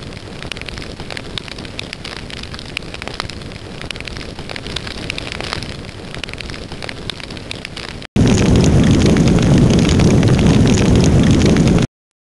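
Fire sound effect: crackling flames with many small pops. About eight seconds in it cuts to a much louder, deeper blaze that stops abruptly near the end.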